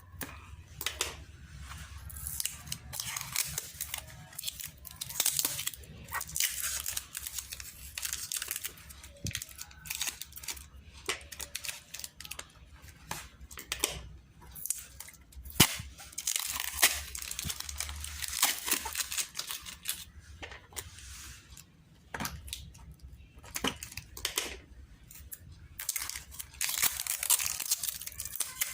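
Plastic parcel packaging being torn open and crinkled by hand, in irregular rustling spells with scattered sharp clicks.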